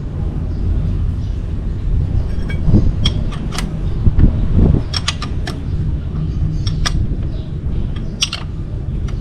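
Scattered metallic clicks and taps of a hand tool working a bolt on the underside of a Honda PCX 160 scooter's engine during an oil change, over a steady low rumble.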